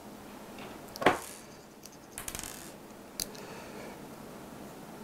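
Sharp clicks and small taps of hands seating parts in an opened electronics unit, with plastic and metal parts knocking against each other: one loud click about a second in, a quick run of small clicks a little after two seconds, and another click just past three seconds.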